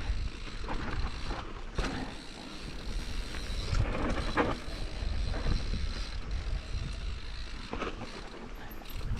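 Mountain bike riding down rough singletrack: a low rumble of tyres on the trail, with the bike creaking and rattling and scattered sharp knocks over bumps.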